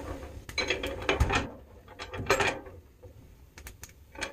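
Latch handle on the cast-iron door of a wood circulator stove being turned shut, metal scraping and clicking in a few short bursts.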